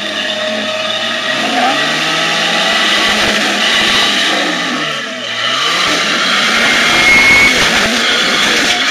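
Jeep Cherokee XJ engine revving hard under load while its tyres scrabble and spin on wet rock. The revs sag about five seconds in, then climb again as the wheels spin.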